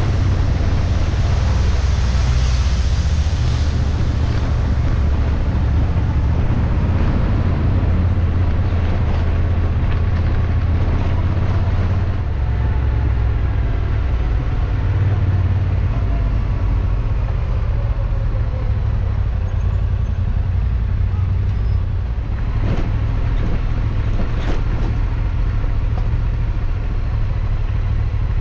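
Yamaha Ténéré 700's parallel-twin engine running steadily while riding, mixed with wind and road noise on the moving bike.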